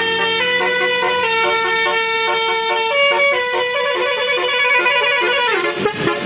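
Telolet 'basuri' multi-tone bus horn playing a tune of held notes that change in steps. About five and a half seconds in, the pitch slides sharply down before the tune picks up again.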